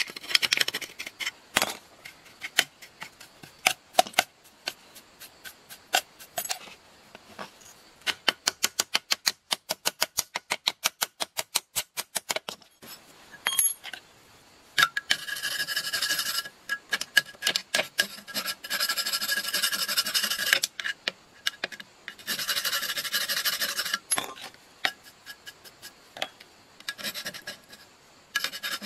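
Steel screwdriver working against the metal housing and stator of a disassembled electric motor: scattered taps and knocks, then a quick even run of taps about a third of the way in, then long stretches of metal scraping and rubbing.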